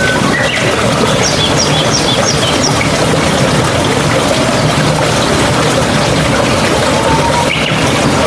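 Mountain stream water rushing and babbling steadily. A bird calls a quick series of about six short high chirps a little over a second in, with a few other brief bird notes scattered through.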